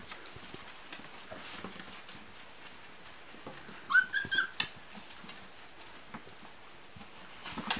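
A puppy gives one short, high squealing yelp about halfway through, rising slightly and broken into a few quick pieces. Around it is faint scuffling and scratching of paws on the pads and bedding of the whelping box.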